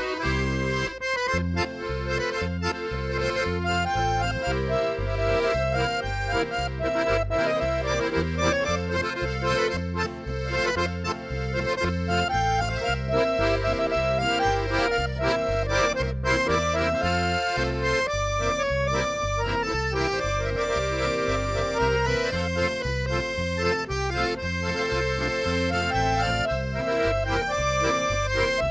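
Instrumental German party music: an accordion carries the melody over a steady, alternating bass beat.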